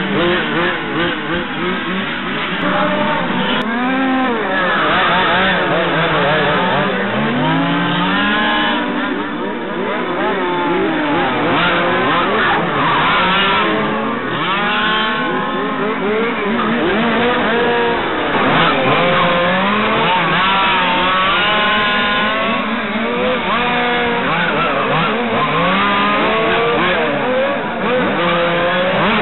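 Several 1/5-scale RC touring cars racing, their small two-stroke petrol engines buzzing and revving, with many overlapping pitches rising and falling as the cars slow for corners and accelerate out again.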